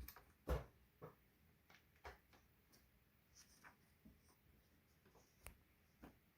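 Paper being handled and shifted, with a few soft knocks and clicks. The loudest two come about half a second apart right at the start, and fainter ones follow; otherwise near silence.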